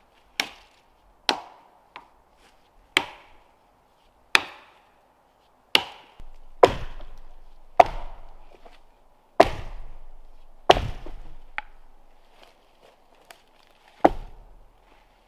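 An axe chopping into wood: about a dozen sharp, irregularly spaced chops, roughly one every second or so.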